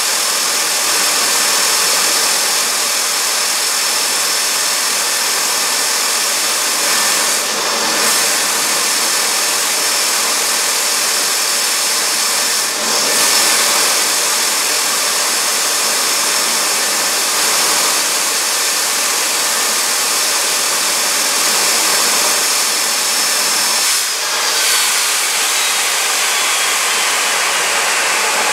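Fairchild J44 turbojet running with a steady rushing roar and a high whine, with a few brief dips in level. About 24 seconds in, the whine starts to fall steadily as the engine spools down.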